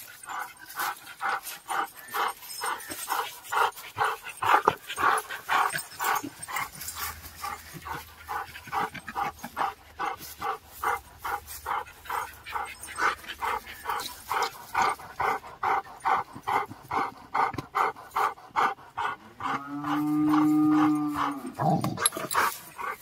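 An American bully dog panting hard and fast in an even rhythm. Near the end a drawn-out pitched sound of about two seconds cuts in and falls away at its close.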